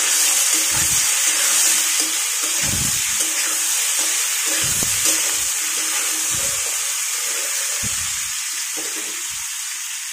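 Potatoes, pointed gourd and sliced onion sizzling steadily as they fry in oil in a steel kadai, with a metal spatula stirring and scraping the pan a few times.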